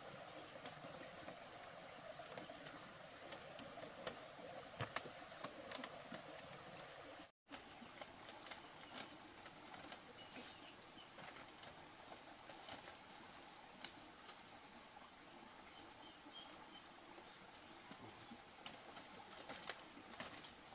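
Faint outdoor ambience with distant birds calling and scattered light clicks; the sound drops out abruptly for an instant about seven seconds in.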